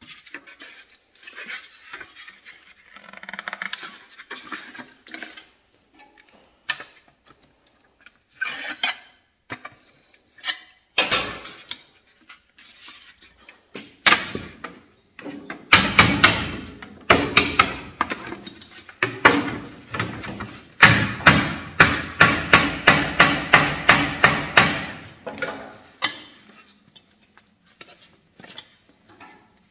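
Sheet-metal balcony cover being knocked down over the edge of a wooden board: light scattered clinks and handling at first, then sharp knocks from about halfway, running into a quick series of about three or four blows a second that stops a few seconds before the end.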